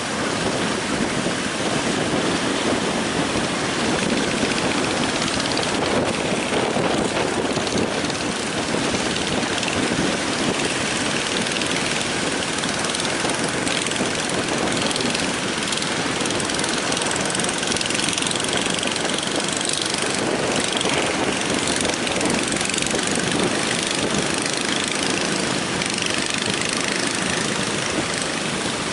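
Heavy surf breaking and strong onshore wind, a loud steady rushing.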